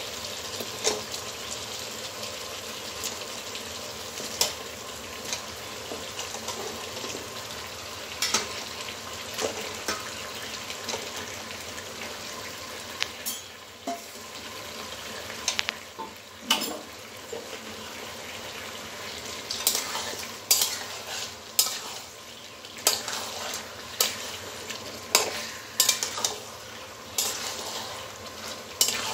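Raw chicken pieces sizzling in hot spiced yogurt masala in a metal kadai, with occasional knocks in the first half. In the second half a metal spatula stirs and scrapes the pan, clinking about once a second, as the chicken is turned to brown without added water.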